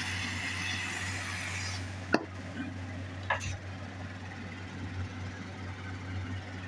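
Gas torch hissing, then shut off about two seconds in with a sharp click, followed a second later by another light knock. A steady electric fan hum runs underneath.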